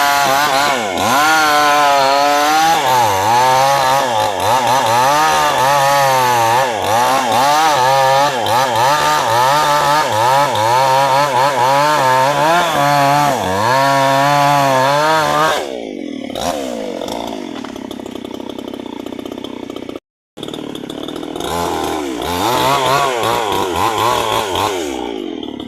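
Chainsaw cutting wood, its engine pitch repeatedly sagging and picking up again as the chain bites under load. About 15 seconds in, the revs fall away to a lower, quieter running speed; the sound cuts out briefly a few seconds later, then the saw comes back up in speed near the end.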